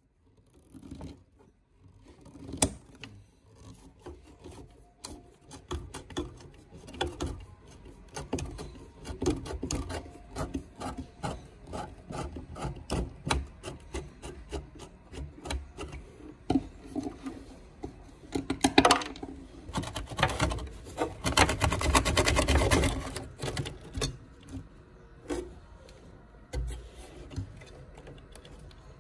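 Hand scraping and rubbing on a hard surface: irregular strokes with small clicks and knocks, thickening into a denser, louder run of scraping about two-thirds of the way in.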